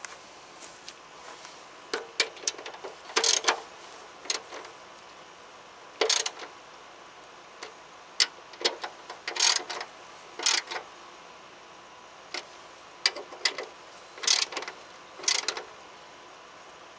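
Hand ratchet clicking in short bursts, with metal clinks, as the nuts holding a new blade spindle to a steel mower deck are hand-tightened. The bursts are irregular, a dozen or so with pauses between.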